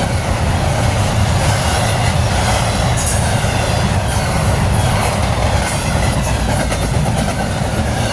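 Norfolk Southern freight train's cars rolling past, a steady loud rumble of steel wheels on rail with a faint high wheel squeal.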